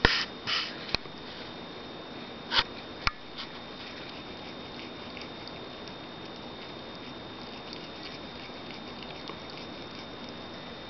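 Siamese cat crunching dry kibble: a few short crunches and two sharp clicks in the first three seconds or so. Then only faint small ticks as it paws at and laps water from a glass bowl, over a steady hiss and a thin high whine.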